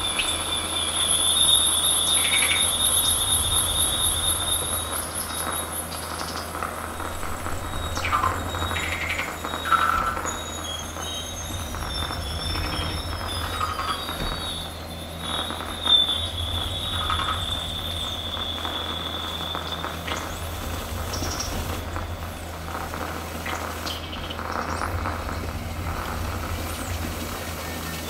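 Experimental electronic score: a low steady drone under a high, thin sustained tone, scattered squeaks, and a tone gliding downward in the middle. The high tone fades out about two-thirds of the way through.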